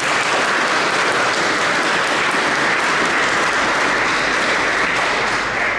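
Audience applauding steadily; the clapping dies away near the end.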